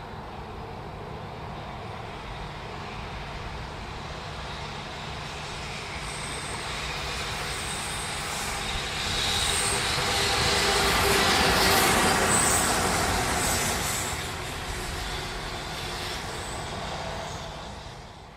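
A train passing by, growing louder to a peak about twelve seconds in and then fading, with short high-pitched squeals around the loudest part.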